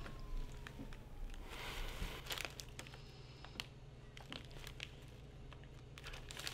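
Faint rustling and crinkling of handled paper, with scattered light clicks over a low steady hum.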